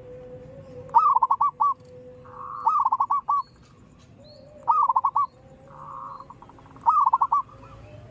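Zebra dove (perkutut) cooing: four phrases about two seconds apart, each a quick run of four or five short rolling notes.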